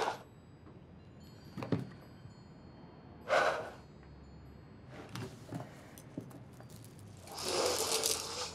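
A woman crying quietly: a few short, breathy sobs and sniffs spaced a second or two apart, then a longer shaky breath near the end.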